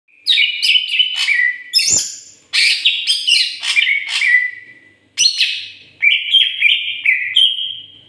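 Caged male cucak ijo (green leafbird) singing loudly in full song. It gives three long phrases of quick, ringing whistled notes, many sharply falling, with short pauses between the phrases.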